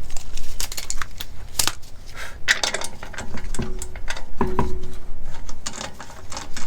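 Hand ratchet clicking in quick runs as a suspension bolt is driven in, with a couple of short metallic clinks from the tools and parts about halfway through.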